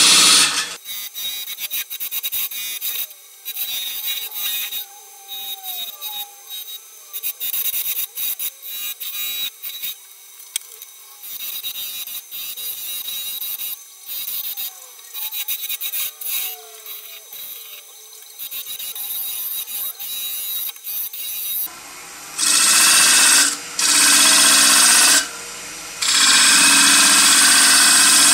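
Turning tool cutting into a large plane-wood bowl spinning on a wood lathe, with the lathe's steady hum underneath. The cuts come as short, lighter scraping strokes for most of the time, then three louder, longer cuts near the end.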